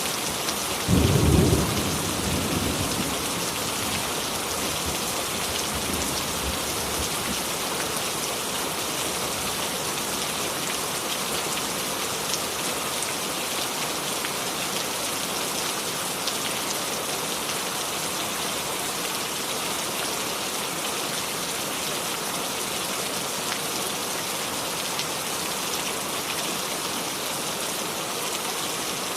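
Steady rain falling. About a second in, a brief low rumble rises loud over it and fades away over the next few seconds.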